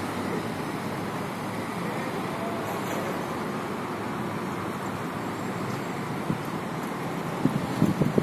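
Steady city road-traffic noise, an even hum of passing cars. A few short knocks near the end.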